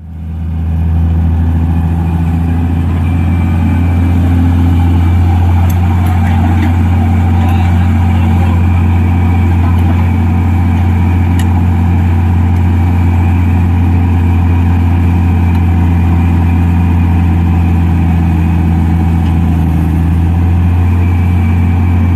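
Excavator's diesel engine running at a steady speed, a deep, even drone that does not change.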